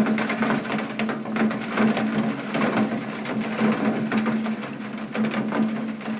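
Rain falling, with dense irregular drops striking a hard surface close by, over a steady low hum.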